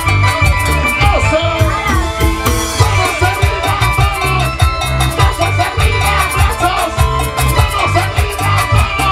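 A live band plays a dance tune through the stage speakers, with keyboard and timbales over a strong, steady bass beat.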